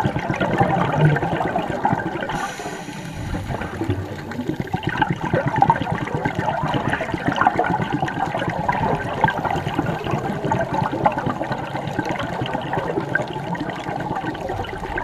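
Scuba divers' exhaled air bubbling out of their regulators, heard underwater: a continuous rushing, crackling stream of bubbles that dips briefly about two seconds in.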